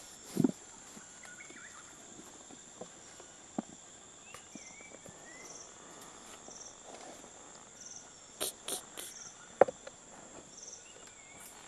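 Insects drone steadily at a high pitch, with short pulsed chirps about once a second and a few bird chirps. Scattered sharp knocks and bumps, loudest just after the start and late in, come from young chimpanzees clambering on a plastic chair.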